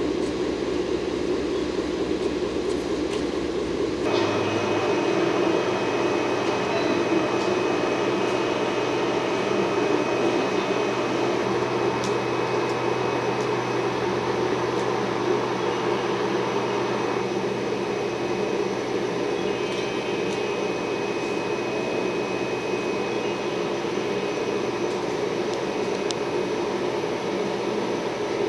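EF65 electric locomotive standing with its blowers running: a steady machine whir. About four seconds in, a low rumble drops away and a faint high whine joins the whir.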